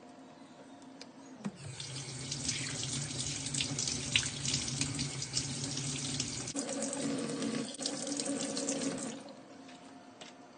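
Kitchen tap running onto a squid being rinsed by hand in a stainless steel sink, the water splashing and spattering. It comes on about a second and a half in and stops near the end.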